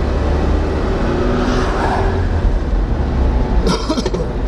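Steady engine and tyre rumble of a vehicle heard from inside its cab at highway speed. An oncoming car swishes past about a second and a half in, and there are a couple of brief clicks near the end.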